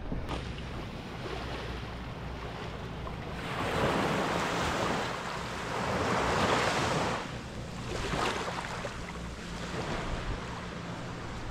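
Sea water washing and splashing around a kayak, with wind buffeting the microphone; the water noise swells louder twice near the middle.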